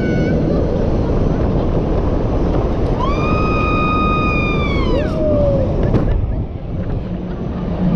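Heavy wind rush buffeting the microphone of a KMG Speed fairground ride as the arm swings the car through the air. About three seconds in, a long high-pitched cry is held for two seconds and then drops away, followed by a shorter, lower falling cry.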